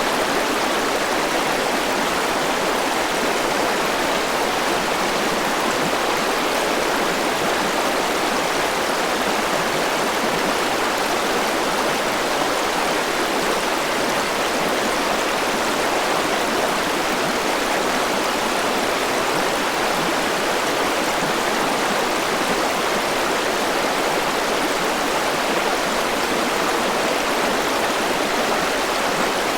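Forest river flowing over rocks: a steady rushing of water with no change.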